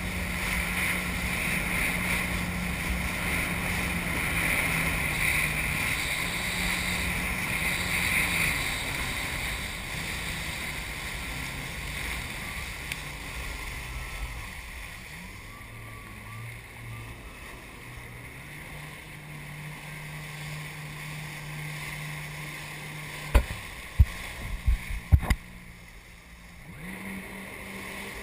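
Jet ski engine running under way, with water rushing past the hull. The engine's pitch drops about halfway through and rises again near the end. Near the end there are a few sharp knocks.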